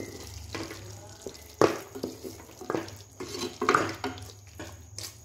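A spatula stirring and scraping mutton in thick masala in a pressure cooker pot while it fries in oil, with a wet sizzle. The scrapes come roughly once a second. This is the bhuna stage, the dry-roasting of the meat in oil and spices.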